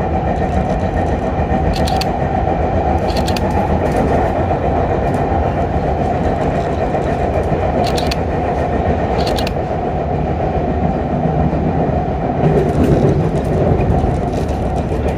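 Sotetsu Line electric train running at speed, heard from inside the front car: a steady rolling rumble with occasional sharp clacks, some in pairs, as the wheels cross rail joints.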